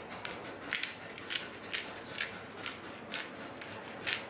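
Hand-twisted pepper mill grinding black pepper, a short gritty crunch with each twist, about twice a second.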